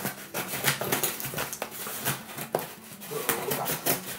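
Scissors cutting through packing tape on a cardboard box: an irregular run of sharp clicks, crackles and scrapes as the blades work along the tape.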